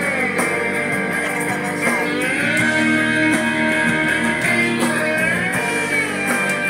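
Guitar music with a held, gliding lead melody over a steady accompaniment. It cuts off right at the end.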